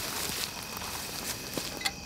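Light rustling with a few small sharp clicks, about half a second in and twice near the end, as camping gear is handled and hung on a hammock ridge line.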